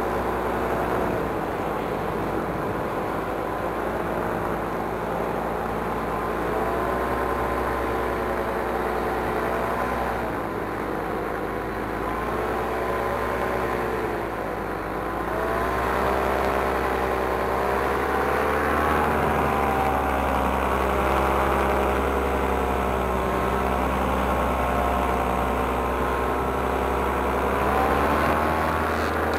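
Paramotor engine and propeller running in flight. The engine note rises and falls gently several times as the throttle is eased on and off.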